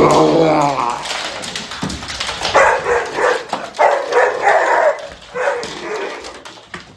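A dog barking and yelping in a run of repeated calls as it runs, with clicks and clatter from its feet on a wooden floor.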